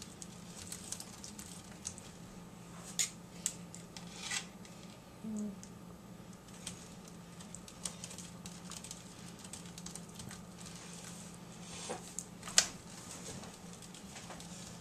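A metal spoon spreading tomato sauce over a pizza crust in a foil pan: quiet scraping with scattered light clicks and taps, a couple of sharper ones near the end, over a faint steady hum.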